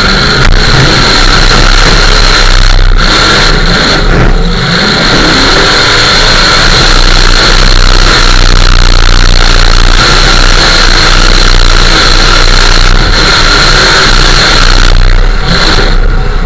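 Demolition derby truck's engine running hard under throttle, very loud from inside the stripped cab.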